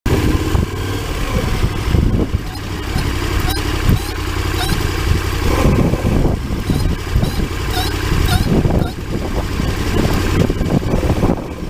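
Vehicle running with a steady low rumble, over which short high-pitched squeaks repeat irregularly: the noise the vehicle makes when braking.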